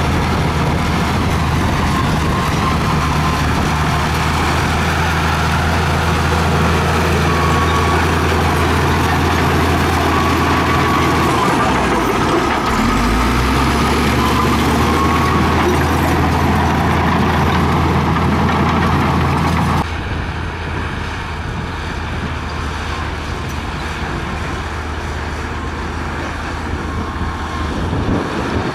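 LiuGong crawler dozer's diesel engine running under load while the blade pushes dirt, with a faint wavering squeal over the steady engine hum. The engine pitch dips briefly about halfway, then picks up again; about two-thirds in the sound cuts abruptly to a quieter, more distant dozer with clattering tracks.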